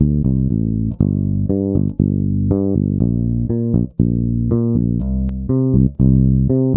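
Electric bass guitar playing a rhythmic line of plucked notes, with brief breaks between phrases, run through a Kilohearts Essentials compressor plugin for a demonstration.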